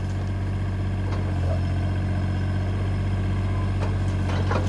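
Bobcat E35 mini excavator's diesel engine running steadily, rising a little in level about a second and a half in, with a few faint knocks toward the end.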